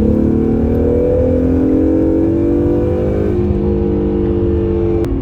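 Acura NSX's twin-turbo V6 running under way, its note rising slightly and then holding steady. A brief click near the end.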